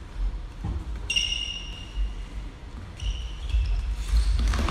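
A whistle blown in a sports hall over a low steady rumble: one blast of about a second, starting about a second in, then a shorter, weaker one about three seconds in. The blowing fits a referee's whistle starting a floorball penalty shot, with a lone player facing the goalkeeper.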